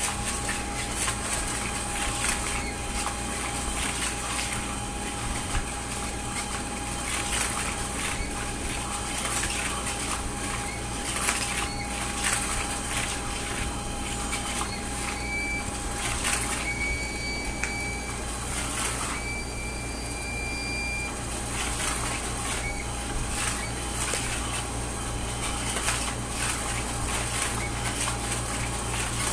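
Cat's Meow battery-powered cat toy running: its motor whirs steadily while the wand it turns scratches and rustles under the nylon cover in irregular ticks and scrapes. A few brief high squeaks come in around the middle.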